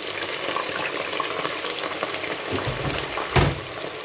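Thick-cut potato fries deep-frying in hot oil in a stainless steel pot: a steady crackling sizzle of many small pops. A single loud knock comes about three and a half seconds in.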